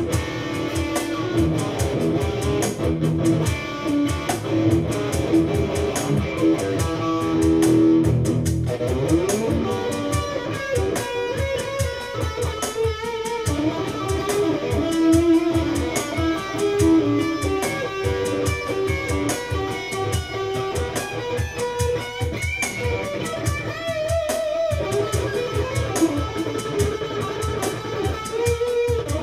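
Electric guitar being jammed on, playing improvised melodic lines with string bends.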